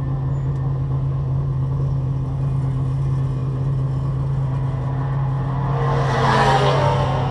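CRA Sportsman stock car engine idling steadily, heard from inside the car. About six seconds in a louder rush of noise swells up over it as another car rolls past close alongside.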